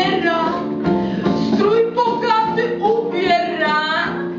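Music: a woman singing a song over a plucked guitar accompaniment, her voice wavering in pitch.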